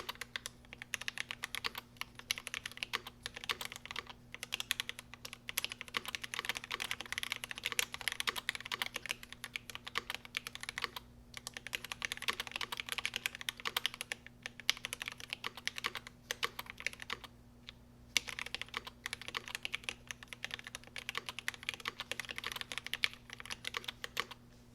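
Fast typing on a GMMK Pro mechanical keyboard with lubed Alpaca linear switches in an aluminium plate and GMK keycaps: quick runs of key clicks broken by a few short pauses.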